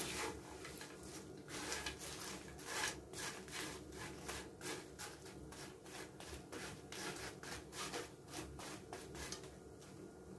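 Spoon stirring a panful of dried anchovies in a frying pan: a quick, irregular run of dry scraping, rustling strokes as the nearly crisp fish are turned.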